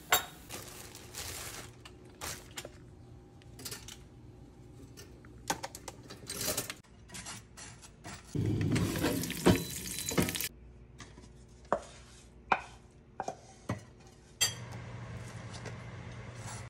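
Kitchen prep sounds: clinks of cutlery against dishes and a butter knife scraping as it spreads butter on slices of bread and toast. There is a louder, longer spell of scraping about halfway through.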